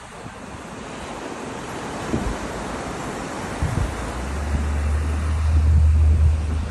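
Sea waves surging and breaking, the surf swelling to its loudest about six seconds in. Wind rumbles on the microphone from about four seconds in.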